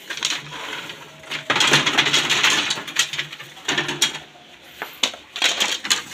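Loose thin bamboo strips clattering and knocking together as they are handled and laid on a slatted bamboo floor. There is a dense burst of rattling about a second and a half in, then scattered knocks.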